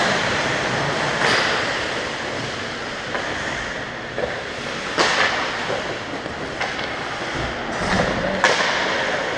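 Ice hockey skates gliding and scraping across rink ice, a steady hiss, with three sharp clacks, the loudest about halfway through.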